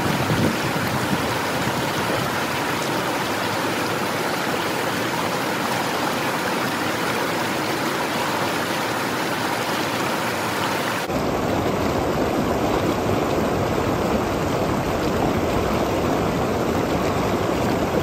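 Mountain stream water rushing and splashing over smooth stone, a steady rush. About eleven seconds in it changes abruptly to a deeper, lower rush.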